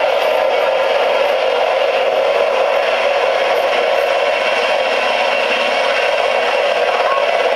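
Steady, even rushing noise of spinning aircraft rotors, with no distinct blade beat.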